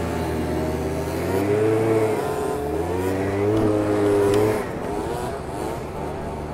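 Two-stroke scooter engines revving on the move, the pitch rising and easing off in several surges; loudest about four seconds in, then the throttle drops back.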